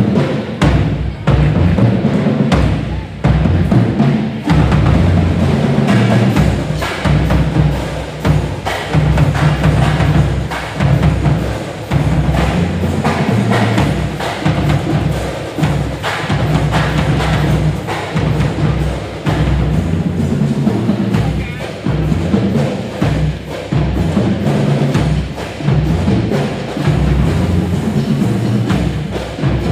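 High school pep band playing brass with drums keeping a steady beat.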